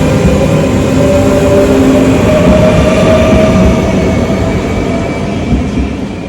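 NS VIRM double-decker electric intercity train pulling away. The whine of its traction motors rises slowly in pitch over the rolling noise as it gathers speed, then fades near the end.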